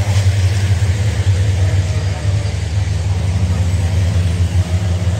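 Diesel engines of racing trucks running as the trucks pass along the circuit, a steady low drone.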